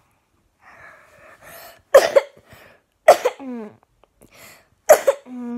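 A person coughing loudly three times, the last two coughs each trailing into a short groan that falls in pitch.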